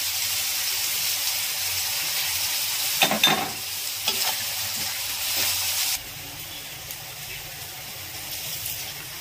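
Sliced onions and green chillies sizzling in hot oil in a wide metal kadai, stirred with a wooden spatula that scrapes the pan around three seconds in. The sizzle turns suddenly quieter about six seconds in.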